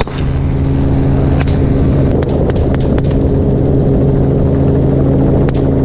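Helicopter turbine and rotor drone, steady and loud, as heard from inside the cabin, with several brief sharp clicks over it.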